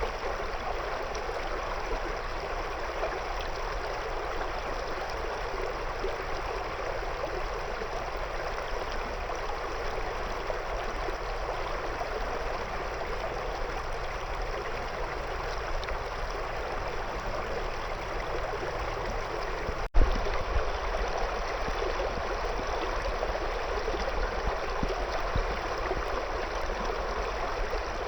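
A shallow river runs over and around stones with a steady rush of water. It is broken once, about twenty seconds in, by a split-second dropout and a click.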